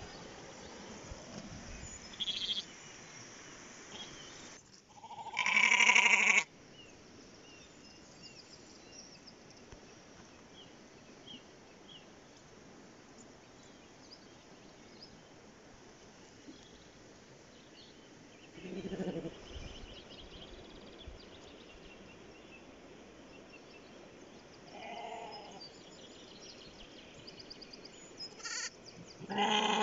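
Sheep bleating, a few separate calls: a loud bleat about six seconds in, a lower one a little before twenty seconds, a softer one around twenty-five seconds, and another loud bleat at the end.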